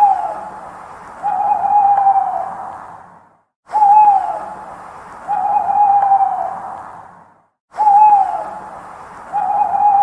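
Owl hooting: a short hoot that drops at its end, then about a second later a longer, slightly falling hoot. The pair repeats three times, about every four seconds, with an echoing tail after each hoot.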